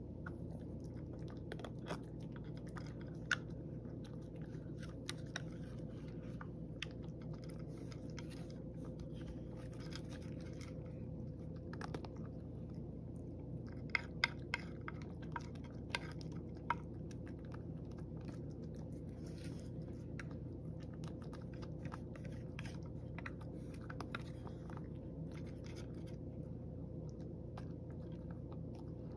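A cat crunching dry kibble: a long run of small crisp crunches and clicks, with a few sharper clicks about halfway through, over a steady low hum.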